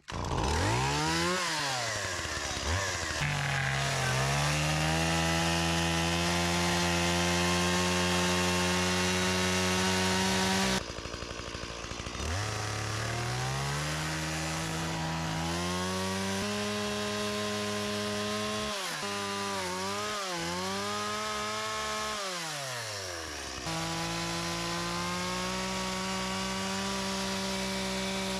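Chainsaw running at high revs while cutting wood into boards. It winds up, holds a steady high note, and about two-thirds of the way in its pitch dips and wavers as it labours in the cut before holding steady again.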